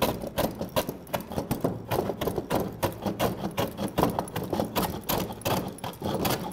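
Hand plane shaving the sawn edge of a wooden board in quick repeated strokes, about three a second, trimming a rough handsaw cut down toward the marked line.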